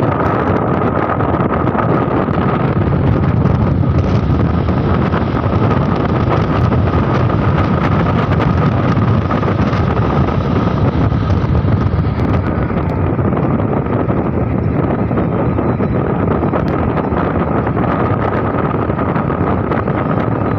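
Steady road and engine noise of a moving vehicle, with wind buffeting the microphone and a faint steady whine running through it.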